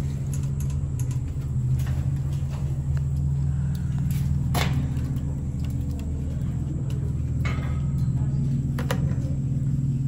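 A steady low droning rumble, engine-like, with a few sharp clicks over it.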